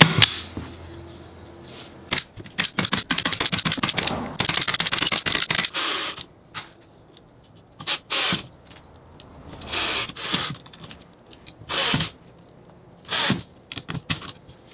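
A single sharp snap from a Logan Dual Driver Elite point driver firing a glazing point into a wooden door frame. Then a Ryobi cordless driver runs fast for several seconds and in short repeated bursts, driving screws into cabinet hinges.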